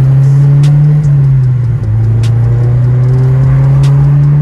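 Honda S2000's four-cylinder engine accelerating hard, heard from inside the cabin. Its pitch climbs, with short dips about a second in and again just before two seconds as it is shifted up a gear.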